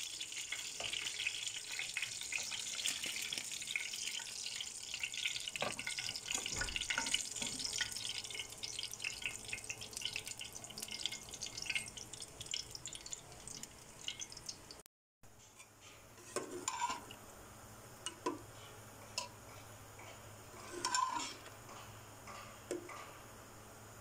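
Hot oil sizzling and crackling as chicken pieces fry in a pan, for about the first fifteen seconds. After a brief gap, a quieter stretch with a few scattered light knocks and clinks of utensils.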